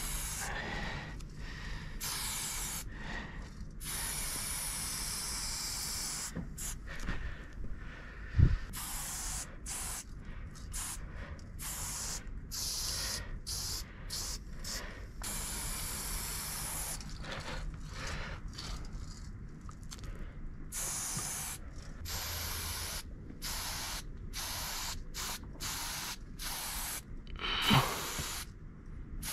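Aerosol spray-paint can hissing in repeated bursts, some short and some several seconds long, as paint is sprayed onto the panel. A sharp knock about eight seconds in and a brief falling sound near the end stand out above the spraying.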